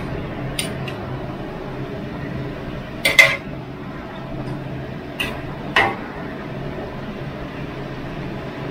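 Metal ladle and spatula clinking against a large metal wok as glass noodle salad is mixed: a sharp clink about half a second in, a double clink around three seconds, and two more near six seconds. A steady low hum runs underneath.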